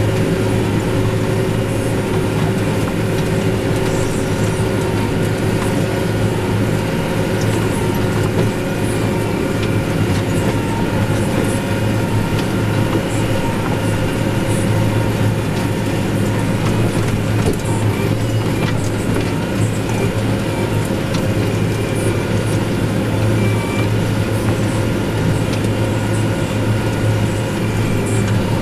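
New Holland tractor engine running steadily under load during hay work, a constant low hum.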